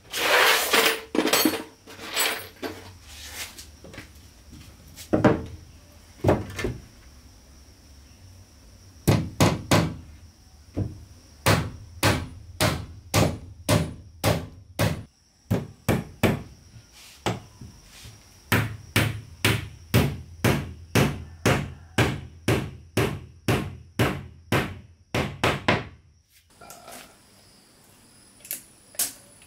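Hammer driving nails into wooden wall planks: sharp, evenly spaced blows at about two a second in several long runs, after a cluster of quicker knocks at the start, stopping a few seconds before the end.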